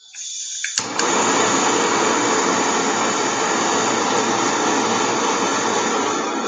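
Handheld gas torch being lit: gas hisses, a click comes just under a second in, and the flame then burns with a loud, steady rush as it heats a steel nut for soldering.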